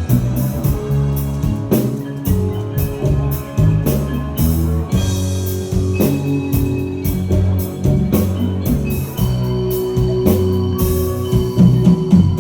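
Live band playing an instrumental passage without vocals, with a steady drum beat over a moving bass line and held keyboard tones.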